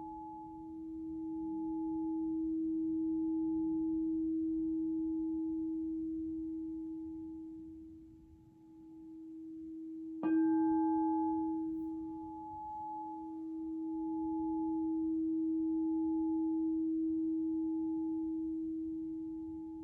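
Alchemical crystal singing bowl sounding one pure steady tone with faint higher overtones, swelling and fading slowly. It is struck sharply about ten seconds in and rings on.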